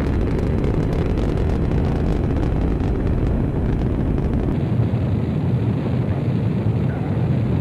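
Saturn V's five F-1 first-stage rocket engines at full thrust during climb-out: a loud, steady, deep rumbling roar. The deepest part of the rumble thins out about halfway through.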